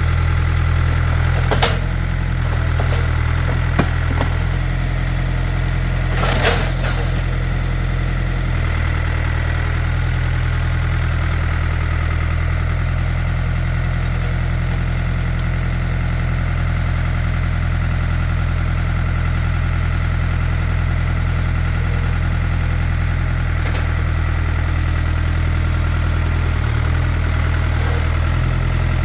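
Farm tractor engine running steadily at a low idle-like pace. A few sharp cracks break through in the first seven seconds.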